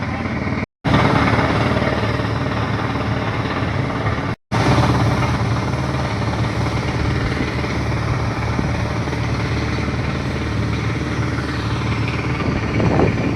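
Heavy diesel dump truck engine running steadily, with two brief drop-outs to silence in the first few seconds.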